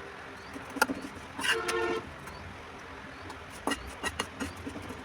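A single short horn toot about a second and a half in, held for about half a second. A few sharp clicks or knocks come before and after it.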